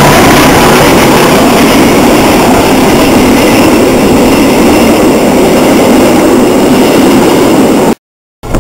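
Passenger coaches of a passing train rolling by at close range: a loud, steady rush and rumble of wheels on rail, cutting off abruptly near the end.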